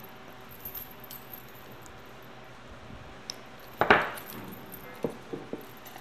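Small pieces handled at a square glass vase: mostly quiet, with one sharp clink about four seconds in and a few light clicks after it.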